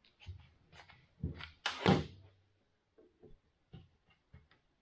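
Knocks and thumps of wooden pieces and tools being handled on a workbench, the loudest about a second and a half to two seconds in, followed by a few lighter clicks.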